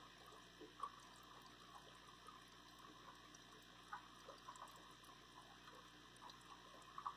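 Near silence with a faint trickle and scattered small drips of water from the aquarium's sponge filter.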